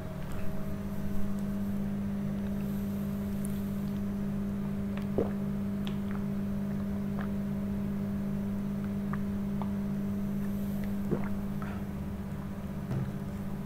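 A steady low hum with fainter higher overtones, and a few faint clicks.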